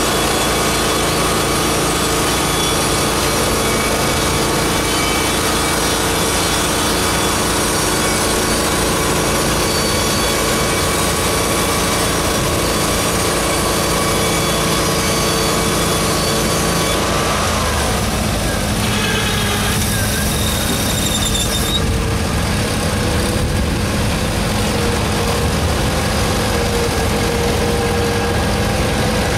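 Hudson Oscar portable band sawmill running, its engine and band blade giving a steady drone with a high whine. A little past halfway the pitch glides down and the low engine note grows heavier.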